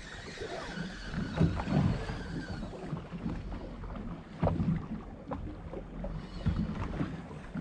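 Open-water boat sounds: wind and water against a small boat's hull, with a few light knocks.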